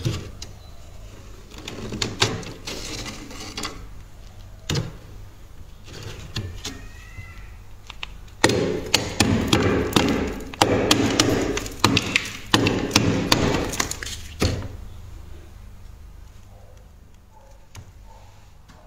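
Thick freezer frost being scraped and chipped off with a hand tool: crunching, scratching strokes with sharp knocks as the tool hits the ice. A short spell about two seconds in, then a longer, louder spell from about eight to fourteen seconds in, after which it dies away.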